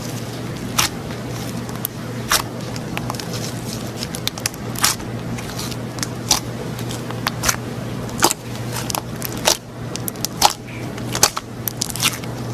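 Slime being squeezed and poked by hand, giving irregular sharp crackling pops and clicks, more than a dozen of them.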